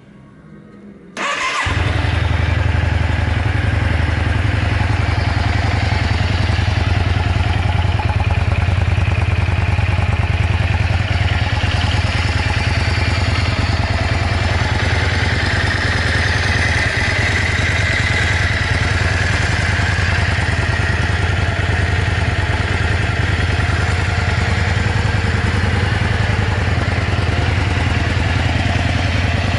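Yamaha Drag Star 400 Classic's air-cooled V-twin being cold-started: the electric starter cranks briefly about a second in, the engine catches, and it settles into a steady idle. The seller presents the running as free of abnormal noises.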